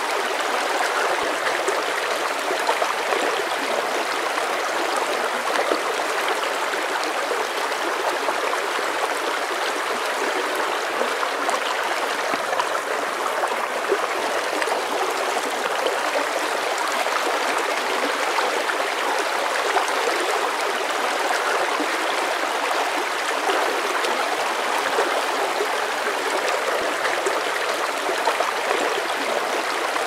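Shallow stream running over rocks and stones, a steady, even rush of water.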